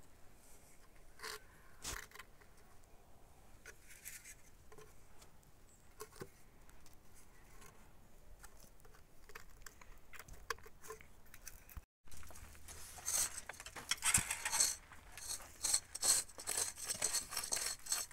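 Light knocks and scrapes of concrete blocks and a spirit level being handled in a wooden column form. Then comes a louder, dense run of rasping scrapes as a tool is worked against the face and mortar joints of a concrete-block column.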